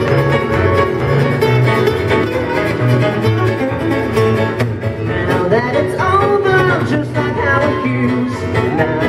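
Live rock band performing: strummed electric and acoustic guitars over a steadily pulsing low end, with a male voice singing from about halfway in.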